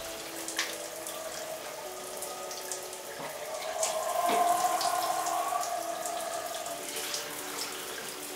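Shower water running and splashing, with a steady tone beneath the spray and a few light knocks.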